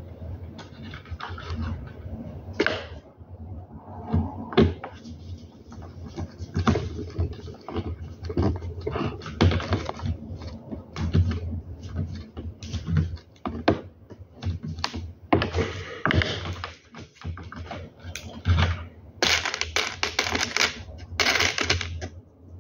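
Irregular clicking, tapping and rattling of small plastic and metal parts as a blind's aluminium head rail is assembled by hand, with a screwdriver worked into the rail. Near the end there are louder, sharper rattles.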